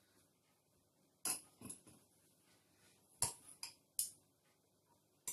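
Metal spoons clinking against a porcelain bowl of egg dye as a boiled egg is lifted out, a handful of short, sharp clinks starting about a second in.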